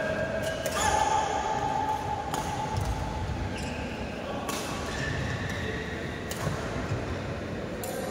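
Badminton rackets striking a shuttlecock during a doubles rally, sharp hits every second or two, echoing in a large indoor hall.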